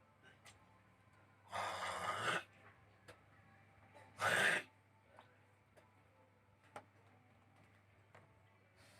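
A person takes two heavy, noisy breaths, gasp-like, the first lasting nearly a second and the second shorter about two seconds later, with a few faint clicks in between.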